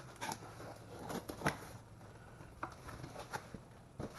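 Light handling noises: scattered clicks and rustles as packaging and box contents are moved about, with one sharper click about a second and a half in.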